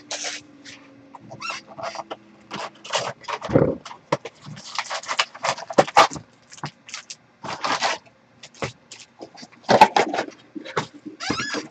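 Foil trading-card pack wrappers and cardboard box flaps rustling and crinkling in the hands as Bowman Chrome boxes are opened and packs pulled out, in irregular crackles and scrapes with a few louder crinkles.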